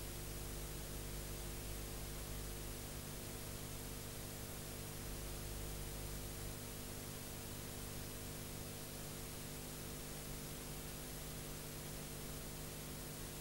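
Steady hiss with a low electrical hum and no programme sound: the noise floor of an old taped TV broadcast.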